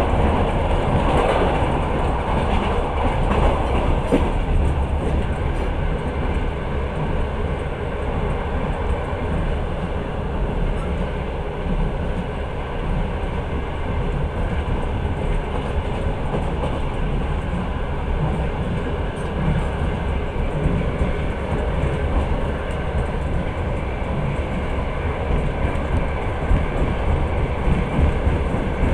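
Long-distance passenger train running along the track, heard from aboard the carriage: a steady rumble of wheels on rails.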